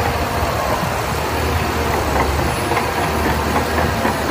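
Shantui crawler bulldozer's diesel engine running steadily under load, with the steel tracks clanking as it pushes sand.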